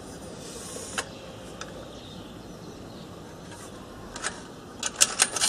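Small hard objects clinking as they are handled: a single sharp click about a second in, then a quick run of sharp clinks near the end.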